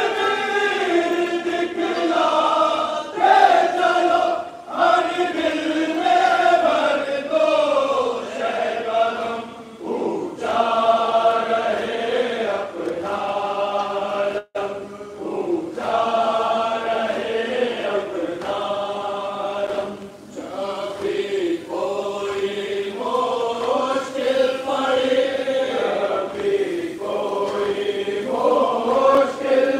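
A large group of men chanting together in unison, a slow devotional chant sung in long, held lines.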